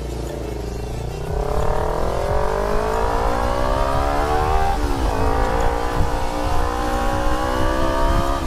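Motorcycle engine accelerating under way: its pitch climbs steadily, drops sharply at a gear change about five seconds in, then climbs again more slowly.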